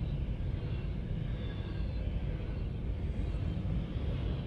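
Double-stack intermodal freight cars rolling past close by: a steady rumble of steel wheels on rail, with faint high tones above it.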